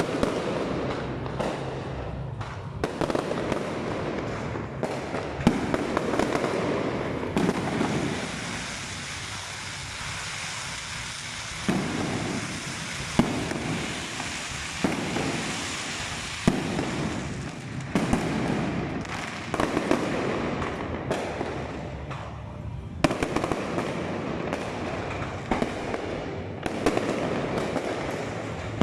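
Aerial fireworks display: shells bursting in a rapid, irregular series of bangs over continuous crackling. There is a quieter crackling stretch about a third of the way in before the bangs pick up again.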